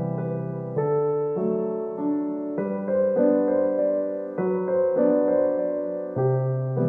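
Background music: slow, gentle electric piano chords changing about every second.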